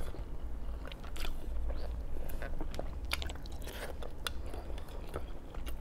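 A person chewing braised pork belly close to the microphone: wet mouth clicks and smacks at irregular intervals, over a low steady hum.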